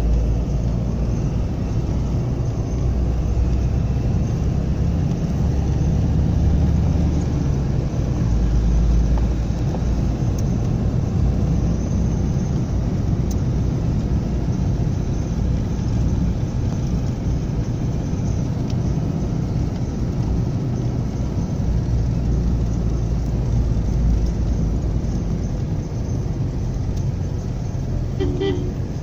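A car driving at road speed, heard from inside the cabin: a steady low rumble of engine and tyre noise. Near the end there is a brief pitched tone.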